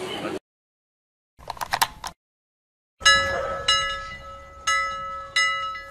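Subscribe-button animation sound effects: a short burst of clicks, then a bell chiming four times, each strike ringing on.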